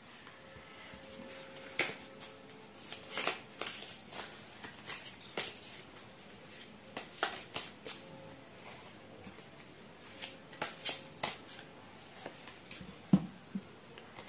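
A deck of tarot cards being shuffled by hand: a low rustle of cards sliding against each other, broken by irregular sharper clicks as the cards strike.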